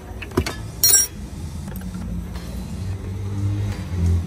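A vehicle engine runs with a steady low hum that swells near the end. About half a second in there is a click, and just before a second in a sharp metallic clink, from metal parts or tools being handled in the engine bay.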